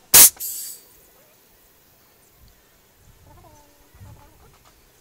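Compressed-air extruder gun on a compressor hose gives one loud, sharp blast of air just after the start, followed by a short hiss as it drives boilie paste out of the tube.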